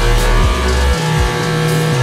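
Hip hop backing track with deep sliding bass notes, over a Dodge Challenger's engine revving and its rear tyres spinning in a smoky burnout.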